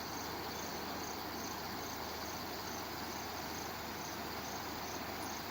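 Night insects, crickets, chirping in a steady even rhythm of about three chirps a second over a continuous high trill.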